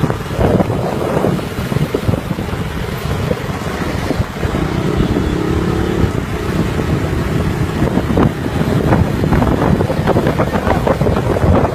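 Wind buffeting the microphone of a camera moving along a road, over the steady running of motorcycle and traffic engines; an engine note stands out faintly about five seconds in.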